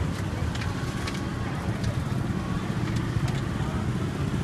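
Busy market street ambience: a steady low rumble of vehicle engines with a few faint clicks.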